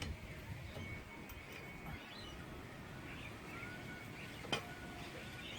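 Faint bird chirps over quiet outdoor background, with a single short click about four and a half seconds in.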